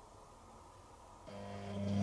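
Beko WTG620M1 washing machine starting up a steady mechanical hum about a second into an otherwise near-silent stretch, getting louder toward the end.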